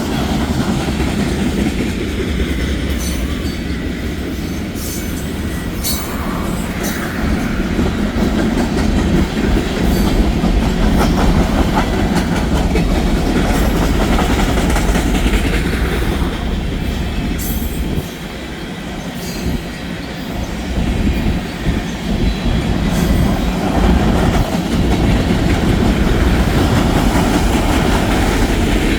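Train rolling on the rails: a steady low rumble with wheel clatter and scattered metallic clicks. It drops briefly about two-thirds of the way through, then builds back up.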